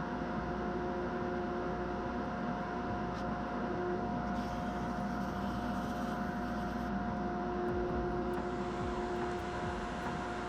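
Wood lathe and dust extractor running steadily while a round carbide cutter turns a padauk pen blank on a pen mandrel, with a brighter cutting hiss from about four and a half to seven seconds in.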